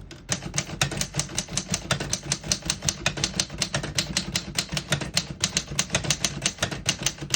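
1958 Remington Travel-Riter manual portable typewriter being typed on: a steady, fast run of key strikes, about seven or eight a second. The keys strike cleanly, none skipping or sticking.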